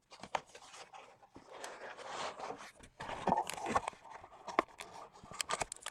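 Crinkling, rustling packaging of a box of trading cards being opened and handled, with scattered sharp clicks and a louder crackle about three seconds in.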